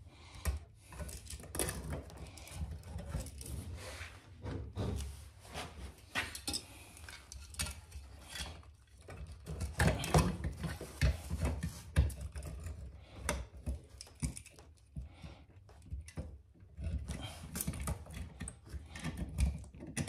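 Irregular clicks, knocks and rubbing as a plastic wall receptacle and its box extender frame are handled and pushed into place in the electrical box.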